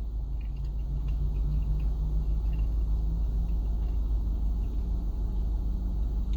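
A steady low rumble with a faint low hum, and a few soft small clicks over it.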